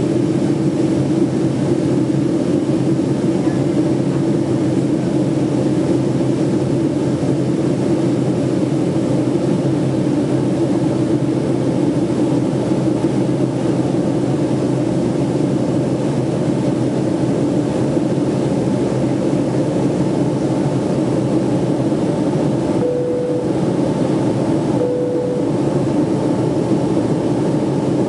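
Steady cabin noise inside a Boeing 757-200 in flight: engine and airflow noise with a low hum. Two short tones, about two seconds apart, sound near the end.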